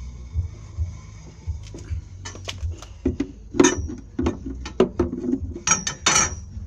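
Volkswagen gear shift lever and its bushing being worked by hand: a run of irregular clicks and clunks of hard plastic and metal that starts about two seconds in. A steady low pulsing hum runs underneath.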